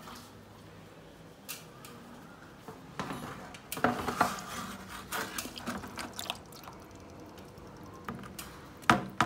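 A plastic bucket and the water hose of a wet core drill being handled, with water splashing and dripping and a few knocks and clatters, a cluster of them a few seconds in and the loudest single knock near the end. The drill motor is not running.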